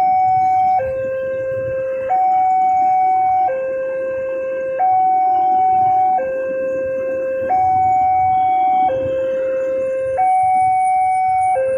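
Railway level-crossing warning alarm sounding its electronic two-tone signal, a higher and a lower note alternating about every 1.3 seconds. The sound means the barrier is down and a train is approaching.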